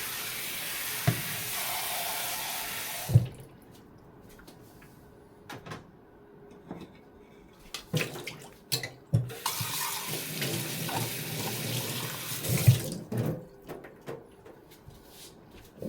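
Kitchen tap running into a sink, stopping about three seconds in and running again for a few seconds later on. In between come scattered clicks and knocks of things being handled, with a sharper knock as each spell of water ends.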